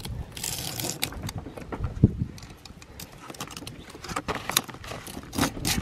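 Metal ratchet-strap buckle being worked open and released: an irregular run of sharp clicks and rattles, with a louder knock about two seconds in.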